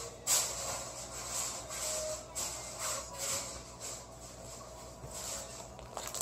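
Fluffy white cloud slime being stretched and pulled apart by hand, giving a series of soft, irregular rubbing noises.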